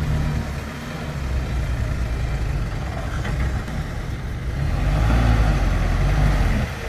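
Dump truck engine running under load, growing louder about two-thirds of the way through.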